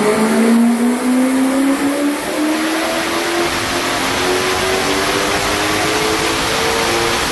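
Turbocharged BMW N62B44 4.4-litre V8 at full throttle on a hub dyno, its note rising steadily in pitch as it pulls from about 3,000 to over 6,000 rpm under about 2.3 bar of boost.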